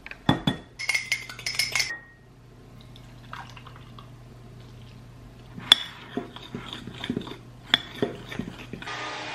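A metal measuring cup knocks and scrapes against a glass mixing bowl as pancake mix is scooped in. About halfway through, a sharp clink starts a run of repeated clinks: a spoon hitting the glass bowl while batter is stirred.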